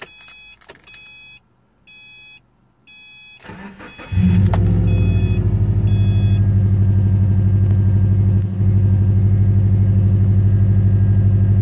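A car's dashboard warning chime beeps about every two-thirds of a second. About three and a half seconds in, the starter cranks briefly and the 2008 Subaru WRX's turbocharged flat-four engine catches and settles into a steady idle. The chime stops a couple of seconds after the engine starts.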